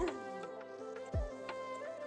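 Background music: sustained tones over a slow beat of low drum hits.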